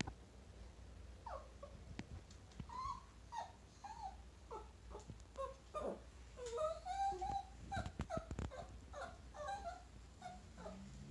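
Chihuahua whimpering over and over in short, high whines that bend up and down in pitch, with one longer whine about halfway through. A few light taps or clicks come near the end.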